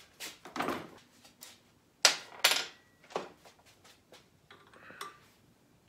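A handful of separate clinks and knocks from tools and metal fork parts being handled, the sharpest two about two seconds in.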